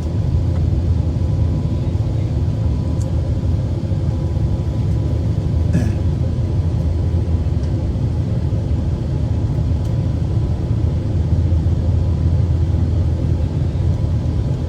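Steady low rumble of engine and airflow noise inside the passenger cabin of an Airbus A380 in flight, with a faint steady hum over it.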